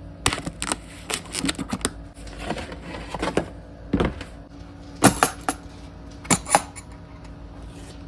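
Unboxing handling: packaging and the mini chainsaw's case being handled and opened, a run of rustles and sharp clicks, with two louder clicks about five and six and a half seconds in.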